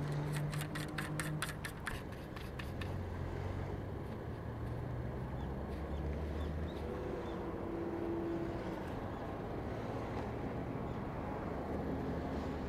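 An engine running steadily, its pitch stepping a couple of times, with a quick run of clicks in the first few seconds.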